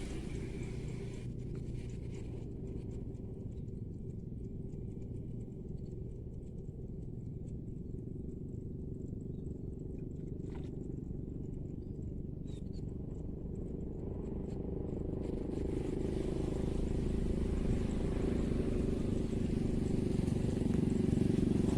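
A steady low engine hum, growing gradually louder over the last several seconds as a motor vehicle approaches.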